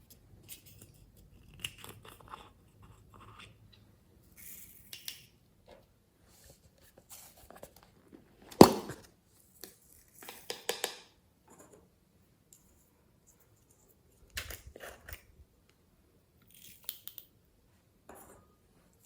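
Hand-handling sounds while slime ingredients are worked: scattered clicks, crackles and scrapes, with one sharp knock about nine seconds in.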